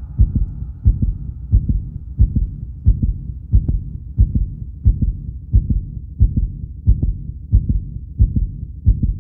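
Heartbeat sound effect: a steady low double thump, lub-dub, repeating about every two-thirds of a second, that cuts off suddenly at the end.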